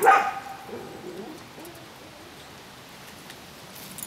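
A dog barks once at the start, the call trailing off over about half a second, with a fainter lower sound about a second in; the rest is a quiet steady background.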